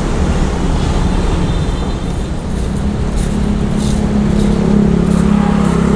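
Wind rush and road noise from a moving motorcycle, loud and steady, with a low steady hum coming in about halfway through.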